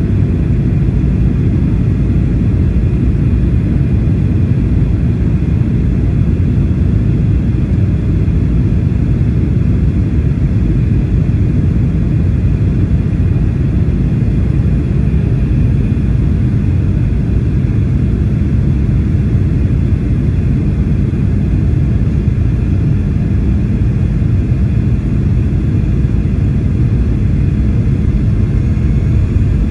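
Steady cabin noise inside a Boeing 737-800 on approach: a low rumble of airflow and CFM56-7B turbofan engines, with a faint steady whine above it.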